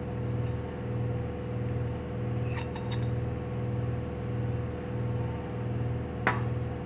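Light clinks of small metal chainsaw piston-kit parts being handled, a few faint ones partway through and one sharp click near the end, over a steady low hum that swells and fades about one and a half times a second.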